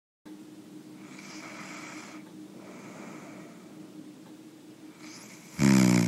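A person snoring. Quieter breathing sounds over a steady low hum, then one short, loud snore near the end.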